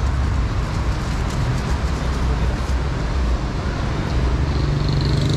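Steady road traffic noise with a heavy low rumble; about four and a half seconds in, a vehicle's low engine hum and a faint high whine come in.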